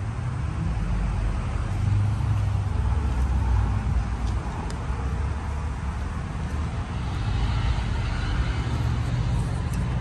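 1989 Carrier TECH2000 5-ton three-phase air-conditioner condensing unit running: a steady low hum from the compressor under the even rush of air from the condenser fan.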